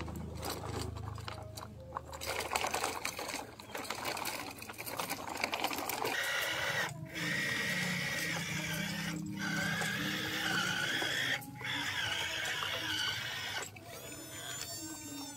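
Small electric gear motors of a toy remote-control excavator whining as it works its arm and tracks, the pitch wavering and stopping briefly a few times before cutting off near the end. A crackly scraping of dirt and gravel comes first.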